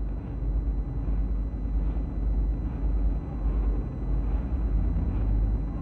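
Steady low rumble and hiss with no voice: the background noise of an old 1970 live recording.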